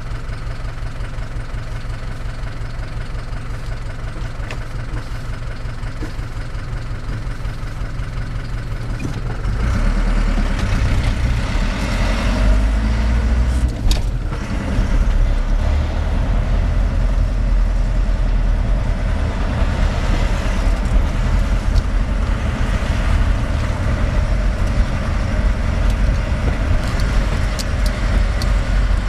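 A motor vehicle's engine running steadily as it moves along, a low rumble that grows louder about nine seconds in.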